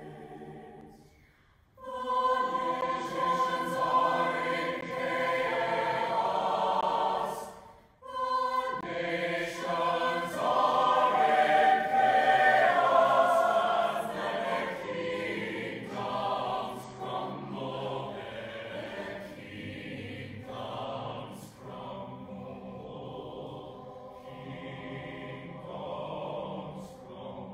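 Large mixed choir singing a sacred song in several voice parts. The phrases break off briefly near the start and again about eight seconds in, are loudest from about ten to fourteen seconds, and are softer in the second half.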